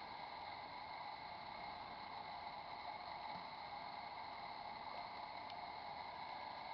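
Steady hiss with a few faint fixed tones, the self-noise of a Nikon D5000 camera's built-in microphone; no sound from the bird feeding comes through.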